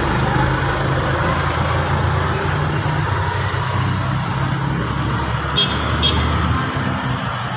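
A motor vehicle's engine running steadily, then fading out near the end, with two short high chirps late on.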